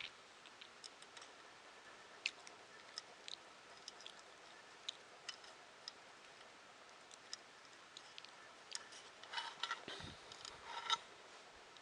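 Sparse, irregular small clicks and ticks from small nuts, bolts and plastic parts of a 3D printer kit being handled and fitted, with a busier run of clicks and a soft knock near the end.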